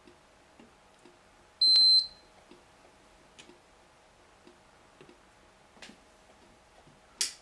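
A single high electronic beep, about half a second long, less than two seconds in, over a clock ticking faintly about twice a second; a short sharp click near the end.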